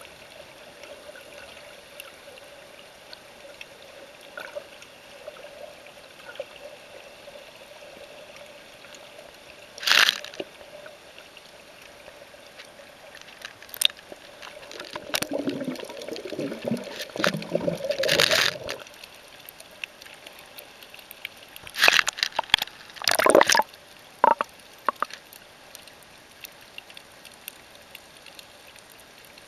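Water sloshing and bubbling around a camera held underwater while snorkeling, over a steady faint hiss and hum. Loud gurgling bursts come about ten seconds in, again for a few seconds in the middle, and in a cluster a little past twenty seconds.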